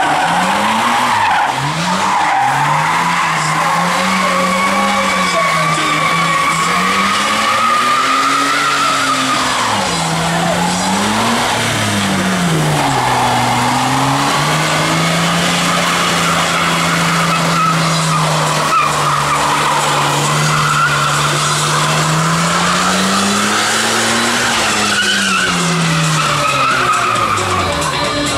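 BMW E30 doing a burnout: the engine is held at high revs while the rear tyres spin and screech on the tarmac. The revs dip and climb a few times, hold steady for a long stretch in the middle, then rise once more and fall away near the end.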